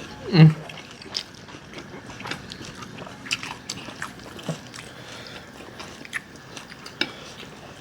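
People eating ramen noodles with chopsticks: chewing and small mouth noises with scattered light clicks. About half a second in comes one short sound that falls steeply in pitch, the loudest thing here.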